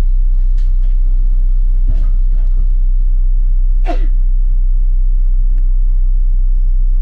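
Steady, heavy low rumble of a bus's engine and running gear heard from on board, with one short, sharp squeak about four seconds in.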